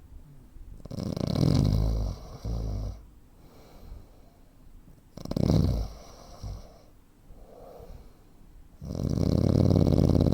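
A man's heavy snoring: three loud snores about four seconds apart, with quieter breaths between them.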